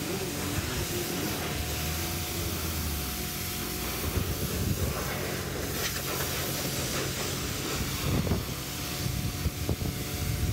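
Pressure washer jet spraying water onto a car's bodywork: a steady hiss over a low, steady hum.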